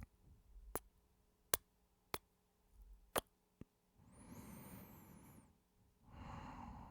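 Close-miked kissing: about five sharp lip smacks in the first four seconds, then two long breaths.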